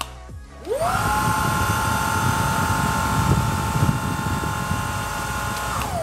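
INSE S10 cordless stick vacuum's motor starting with a rising whine, then running steadily in continuous mode with a high whine over a rush of air. The whine starts to fall near the end as it is switched off and spins down.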